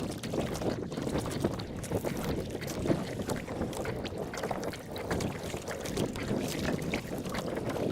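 Wind buffeting the microphone, with irregular splashing and sloshing of water around a small boat.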